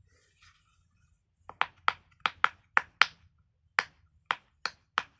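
Silicone pop-it fidget toy being pressed, its bubbles popping one after another in sharp clicks, two or three a second, starting about a second and a half in.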